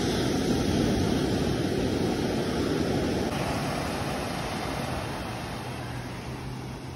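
Sea surf breaking and washing up the sand, a rushing wash that is strongest in the first few seconds and then slowly fades as the water draws back.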